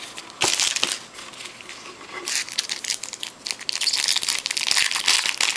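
Foil trading-card pack wrapper crinkling in the hands: a short burst about half a second in, then continuous crackling from about two seconds on.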